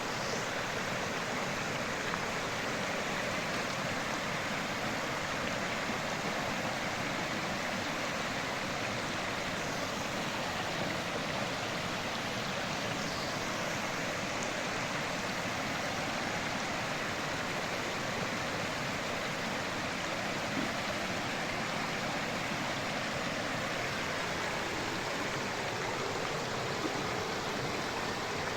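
Creek water running over rocks: a steady rushing and burbling that does not change.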